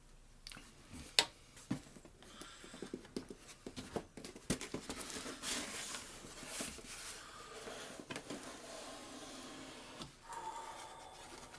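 Camera packaging being handled and unwrapped: plastic wrap and packing material rustling and crinkling, with scattered clicks and taps.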